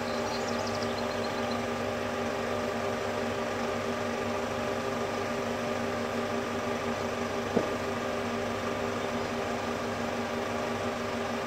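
35 mm film projector running with a steady mechanical whir and hum, and a single click about seven and a half seconds in.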